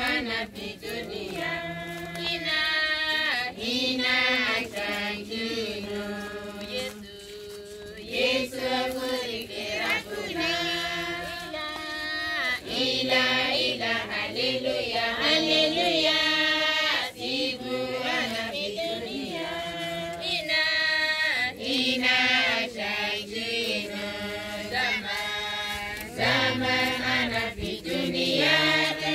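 A group of voices singing a Christian hymn together, a chant-like song that carries on without a break.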